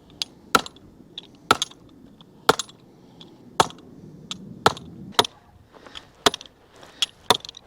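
Fence poles being hammered into soft ground: a series of sharp strikes, about one a second and slightly irregular, each with a brief metallic ring.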